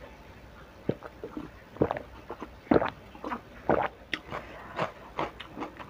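Close-miked mouth sounds of eating and drinking: gulps of water swallowed about once a second, then quicker, smaller bites and chewing of fried tempe in sambal near the end.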